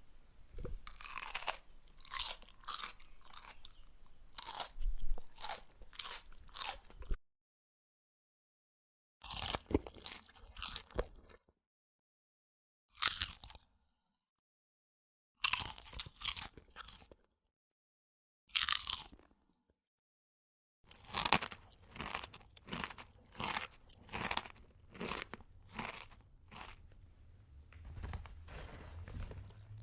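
A mouth chewing crunchy food: a run of crisp crunches for about seven seconds, a short silence, four short separate bouts of crunching, then a long run of dense crunching again in the last third.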